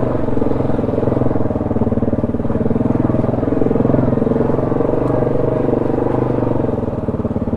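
Off-road vehicle's engine running steadily on a trail, holding an even pitch without revving up or down.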